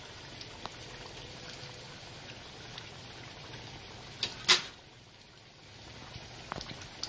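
Vegetable oil sizzling steadily with small crackles around chimichangas frying in a cast iron skillet. About four and a half seconds in, a sharp metallic clack of metal kitchen tongs.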